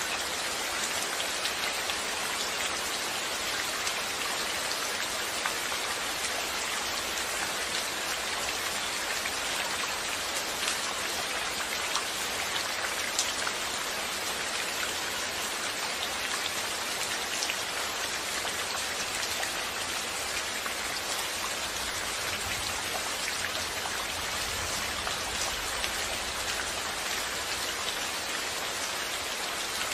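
Steady rain falling and pattering on a surface, with individual drops ticking through it.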